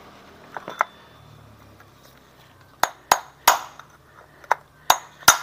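Metal-on-metal hammer blows on a pipe used as a drift, knocking a part loose from a scooter's CVT/final-drive case. Two light taps come early, then from about three seconds in a run of sharp, ringing strikes, two or three a second.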